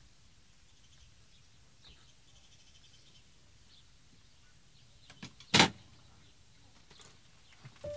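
A few faint clicks of handling, then one short, sharp clack about five and a half seconds in: a campervan cupboard door shutting.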